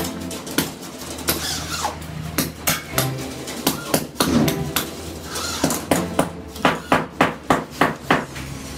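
Repeated sharp knocks and taps, irregular at first and then about three a second from about six seconds in, over steady background music.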